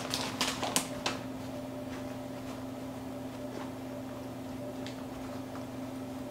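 Frozen tater tots clicking against a wire mesh tray as they are pushed around by hand, several quick taps in the first second and a few faint ones later. Underneath is a steady low electrical hum.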